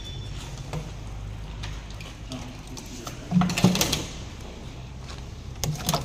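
Thick dishwash liquid scooped with a plastic mug and poured into a plastic drum: a splashing, knocking burst a little past halfway and a shorter one near the end, over a steady low hum.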